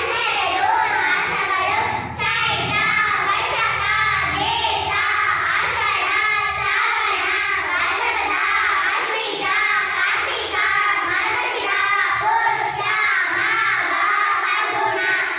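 A group of young girls singing together in unison, one continuous song without pauses.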